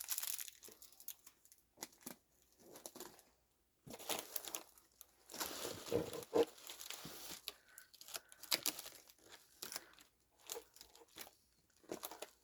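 Plastic snack wrapper being crinkled and torn open, in scattered crackles that are densest and loudest a little past the middle.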